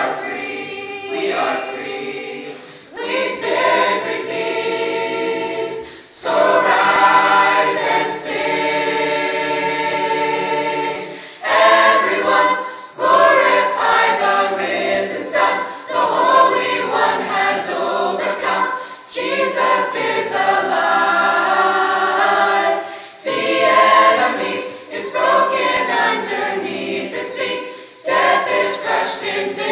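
Mixed youth choir singing in parts, phrase after phrase with short breaks for breath, and one long held chord about a third of the way in.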